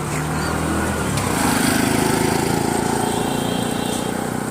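Street traffic: motor vehicle engines running, louder from about a second and a half in.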